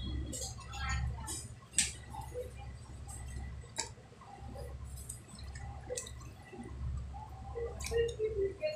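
Wet hands dabbling in a plastic bowl of water while working epoxy putty: light splashes and drips with scattered small clicks, over a low hum.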